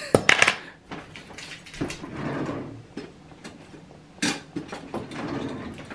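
Kitchen utensil clatter: a few sharp clicks and knocks of a utensil against a mixing bowl and counter, with soft handling and rustling between them.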